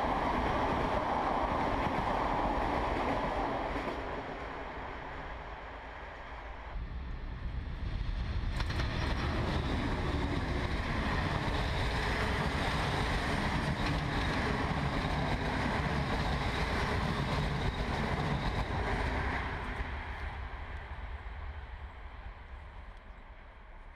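Passenger coaches rolling past on the track, a steady rumble of wheels on rail. It drops for a few seconds, comes back loud, and fades away near the end as the last coach passes.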